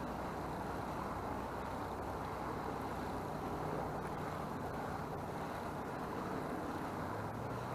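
Boat motor running at a steady drone, with a faint low hum under an even rushing noise and no change in speed.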